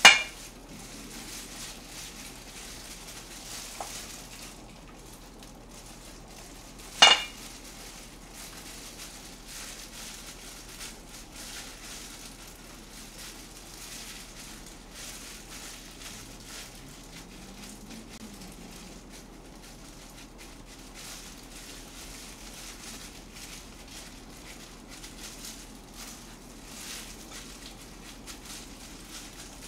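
Two sharp clinks of a utensil against a dish, about seven seconds apart, each with a short ring. Between them only faint handling noise from working seasoned rice into fried tofu pouches.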